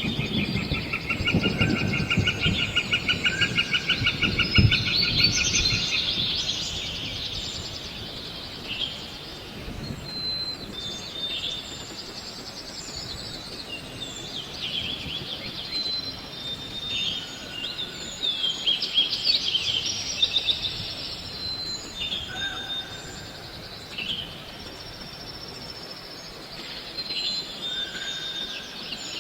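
Several wild birds chirping and whistling. A fast, even trill runs through the first six seconds or so, over low rustling and knocking.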